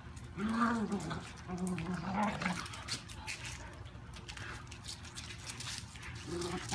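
A small dog vocalizing in play: short wavering whines, twice in the first three seconds and again near the end.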